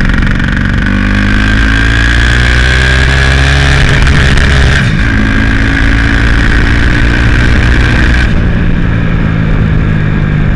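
Turbocharged Honda Titan 160 single-cylinder engine being revved out, its pitch climbing for about five seconds, then changing and easing off to a lower steady note after about eight seconds. The stock blow-off valve is still connected, as a baseline before trying for turbo flutter.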